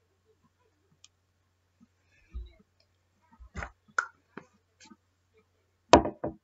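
Slime being squished and poked by hand, making scattered sticky clicks and pops, with a dull thump a little over two seconds in and the loudest pops near the end.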